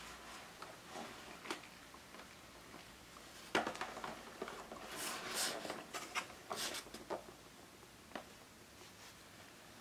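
Cardboard gum carton being handled and tipped over by hand: scattered small clicks, a sharp tap about three and a half seconds in, then a few seconds of fingers scraping and rustling on the cardboard.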